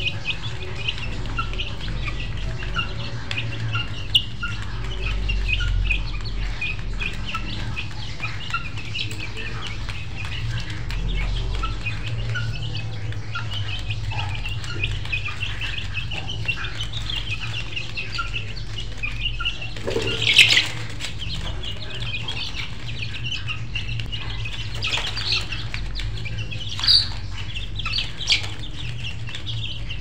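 Backyard poultry birds calling: constant rapid chirping, with a louder squawk about twenty seconds in and two shorter calls near the end, over a steady low hum.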